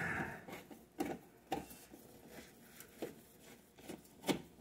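Sheet-metal housing of an oven's lower bake element being handled and worked loose by hand: a short scrape, then a few scattered sharp metal clicks and knocks.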